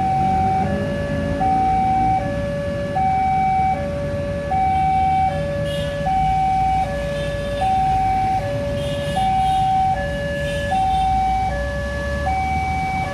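Railway level-crossing warning alarm sounding its electronic two-tone chime, a higher note then a lower one, each about three-quarters of a second, repeating evenly over a low rumble of road traffic. It signals that the crossing is closing for an approaching train.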